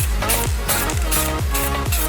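Electronic dance music with a steady four-on-the-floor kick drum, about two beats a second, and hi-hats.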